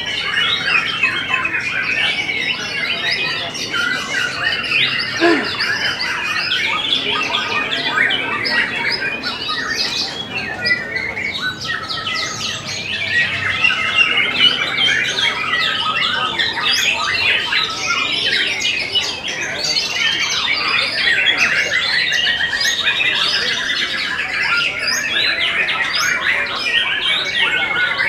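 A white-rumped shama (murai batu) singing without a break: a dense, varied stream of rapid chirps, trills, whistles and squawks.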